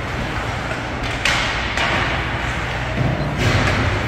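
A single sharp thud about a second in, over steady low rumbling background noise.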